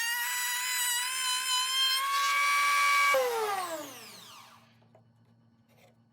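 A router on a router table running with a steady high whine, its pitch rising a little about two seconds in. About three seconds in it is switched off, and the whine falls in pitch as the motor coasts down and fades away.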